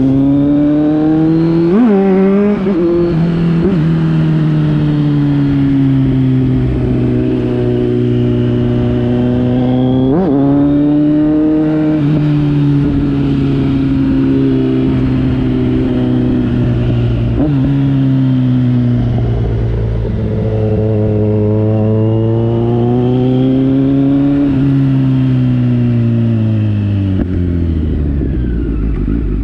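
Kawasaki Z900's inline-four engine running through an aftermarket Akrapovič-replica exhaust, its note rising and falling slowly over several seconds. There are brief sharp blips about 2, 10 and 17 seconds in, and the pitch falls away near the end.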